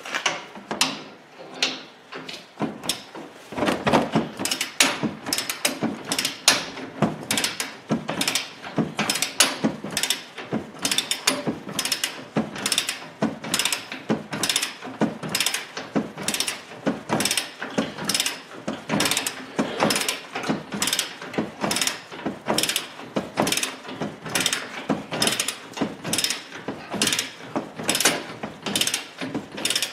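Ratcheting torque wrench tightening the upper control arm bolts: a steady run of ratchet clicks, about two a second, louder from a few seconds in.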